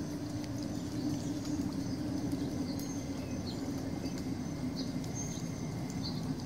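Outdoor ambience: a steady low hum under a noisy bed, with scattered brief high chirps.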